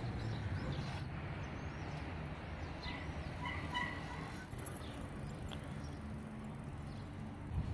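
Quiet outdoor street ambience: a steady low rumble, with a few short high chirps about three to four seconds in.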